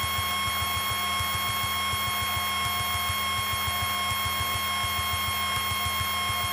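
Piper Tomahawk cockpit in flight, recorded through the headset intercom: a steady high electrical whine over the engine's rapid, even pulsing.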